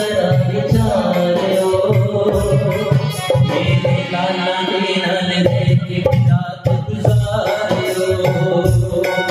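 Live devotional shabad: a male voice singing into a microphone over a hand drum and a held melodic accompaniment.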